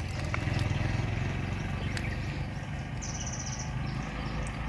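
Wind buffeting the microphone, a low rumble that rises and falls, with a few faint clicks of the bait being handled. About three seconds in, an insect gives a short, high, pulsing buzz.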